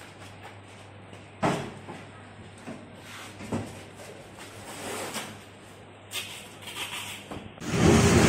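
Wrapped machines being loaded onto a pickup truck bed: two sharp thumps and a few lighter knocks as they are set down and shifted, then a louder stretch of rustling handling noise near the end.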